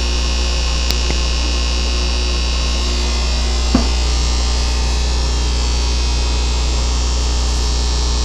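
Steady low electrical hum of aquarium air pumps and tank equipment running, with one short knock just before four seconds in.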